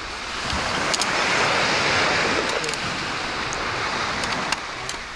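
Ocean wave breaking and washing up the shore: a rushing sound that swells about a second in and slowly fades over the next few seconds.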